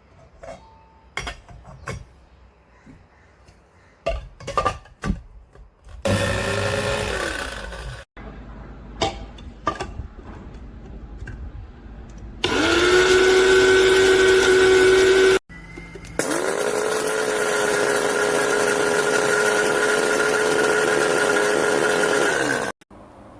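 Electric blade coffee grinder's motor running in three separate bursts, each starting and stopping abruptly: a short one of about two seconds whose pitch drops as it winds down, then about three seconds, then about six seconds near the end. Before and between the runs are clicks and knocks of the grinder being handled.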